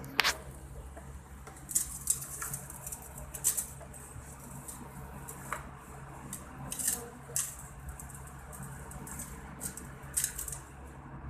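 Rabbits feeding on leafy greens from a steel plate: scattered crisp clicks and rustles of leaves being nibbled and the plate being nudged, coming in irregular little clusters over a steady low hum.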